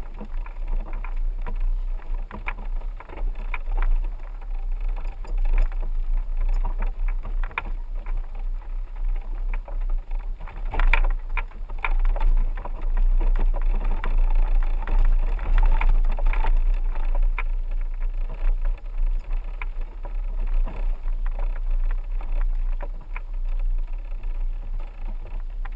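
4x4 driving slowly over a rough dirt road: a steady low rumble with frequent knocks and rattles as it jolts over bumps.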